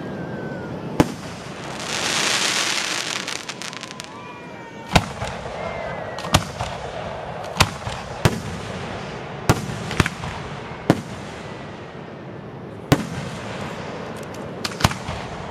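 Fireworks aerial shells bursting in the sky: about ten sharp bangs at uneven intervals, with a loud hissing rush about two seconds in.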